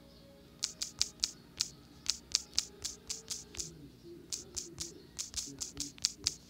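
Key-press clicks from typing on a phone's touchscreen keyboard: a quick, uneven run of about twenty taps with a short pause a little past the middle.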